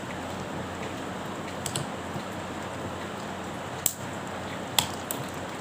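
A few sharp, separate clicks over a steady hiss, from a crimping tool and plastic RJ45 plug being handled while the other end of a UTP cable is worked.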